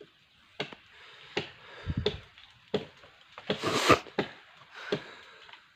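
Repeated chopping strokes into a tree branch, roughly one every three-quarters of a second, with one louder, longer, rustling stroke a little before the four-second mark.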